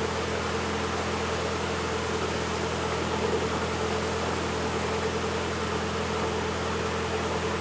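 Narrowboat's diesel engine running steadily at slow cruising speed: an even, low hum with a hiss over it.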